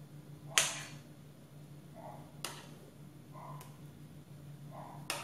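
Metal spoon clinking against the bowl and pan while thick cake batter is scooped and dropped into an aluminium tube pan: a few sharp clicks, the loudest about half a second in, with soft dull sounds of batter in between, over a faint steady hum.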